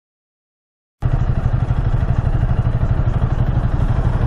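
Honda Rebel 300 motorcycle engine idling steadily at a stop. The sound cuts in abruptly about a second in, after silence.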